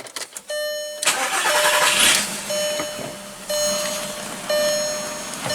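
A VW 2.8 VR6 engine is started about a second in and idles roughly, misfiring from a faulty ignition coil. A car warning chime beeps about once a second over it.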